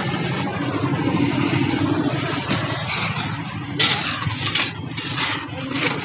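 An engine runs steadily. In the second half, shovels scrape into a heap of crushed stone about four times.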